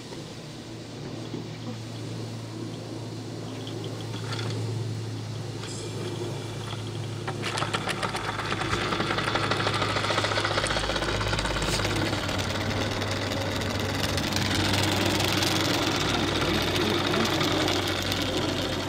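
Märklin 4122/11 live-steam toy engine running with rapid, even chuffing. It runs fairly quietly at first, then grows clearly louder about seven seconds in.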